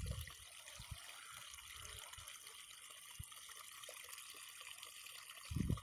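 Faint, steady trickle of flowing canal water, with a few soft low knocks and a brief low rumble near the end.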